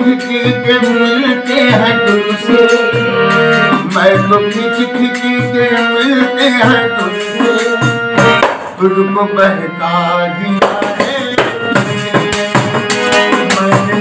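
Harmonium playing a ghazal tune in held chords, with a hand-struck tambourine beating out a quick rhythm and an elderly man's voice singing over them.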